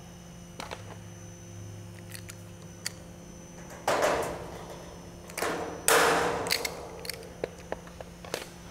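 Steel fascia and its bracket being handled: scattered light clicks, then two short clattering knocks about two seconds apart, each dying away quickly.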